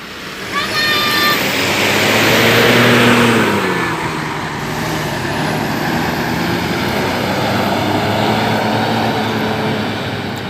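A large bus passing close by: a brief horn note about half a second in, then its engine and tyre noise swells to a peak about three seconds in and drops in pitch as it goes past, leaving a steady traffic rumble.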